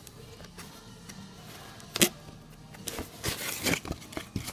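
Cardboard box and its paper packaging being handled and opened: a sharp knock about two seconds in, then rustling and scraping of paper and cardboard near the end.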